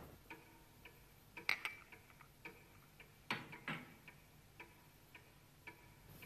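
A clock ticking faintly and steadily in a quiet room, with a few louder clicks about a second and a half and three and a half seconds in.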